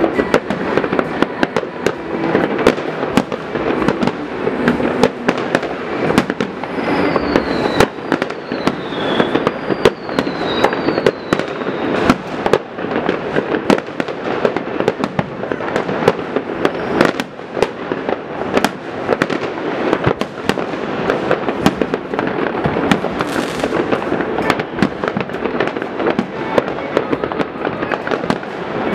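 New Year's fireworks going off all over a city: a continuous barrage of firecracker bangs and crackling without a pause, with several short falling whistles about a third of the way in.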